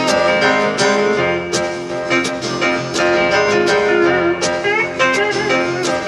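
Live country band playing an instrumental break: strummed acoustic guitar under a lead line, with a few bending notes about four and a half seconds in.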